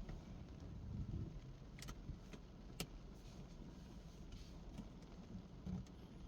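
Scattered raindrops ticking on a car's roof and windows, heard from inside the car: a few sharp single taps over a low steady rumble.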